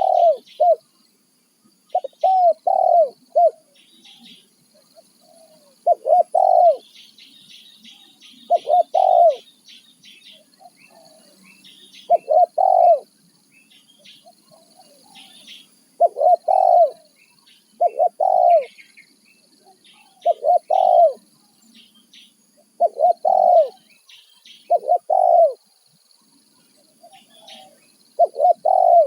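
Spotted dove (tekukur) cooing: short phrases of two or three notes, repeated every two to four seconds, with small birds chirping faintly behind.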